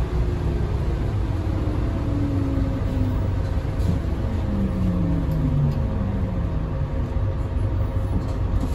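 Scania K320UB hybrid bus heard from inside the cabin, slowing for a stop: a steady low drivetrain rumble with a whine that falls in pitch as it decelerates.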